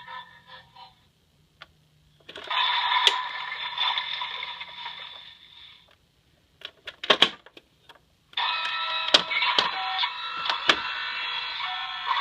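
A toy garbage truck's small built-in speaker playing tinny electronic sound effects and music in two long stretches, with a few sharp clicks between them.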